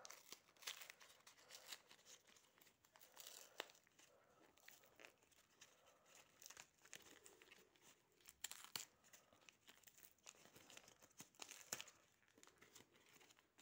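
Faint crinkling and tearing of a small wrapped packet being unwrapped by hand, in irregular crackles and rustles.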